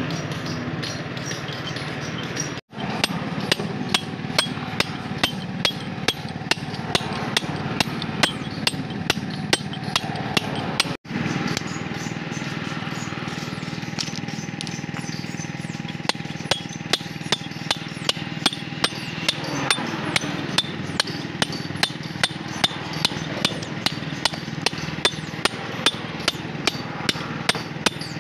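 Hammer striking a hand-held steel chisel against a stone boulder, knocking steadily about twice a second as it chips a splitting groove into the rock.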